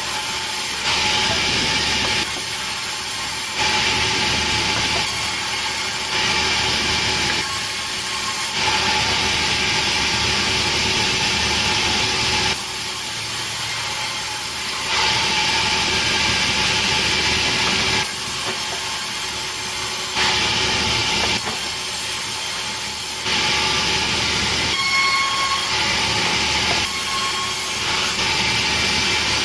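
Sawmill saw cutting petai wood, a wood whose fibres quickly dull the saw blade. The noisy cut swells and eases in stretches of one to four seconds over the steady hum of the mill's motor.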